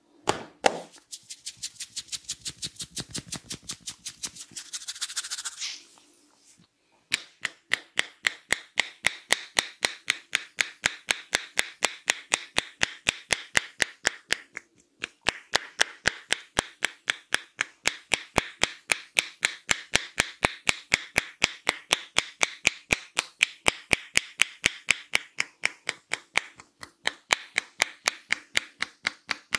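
Hands rubbing and scrunching through hair with quick soft clicks for a few seconds. Then rhythmic head-massage tapping, the barber's hands striking the head in sharp, even slaps at about four a second, with a couple of brief pauses.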